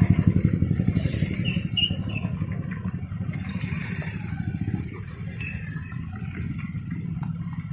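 Motorcycles riding past one after another, their small engines running with a fast, even pulsing. Loudest at the start as one passes close, then easing off as others follow.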